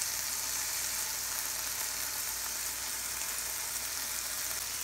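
Pieces of yellowtail snapper fillet sizzling steadily in hot oil, butter and garlic in a cast iron skillet.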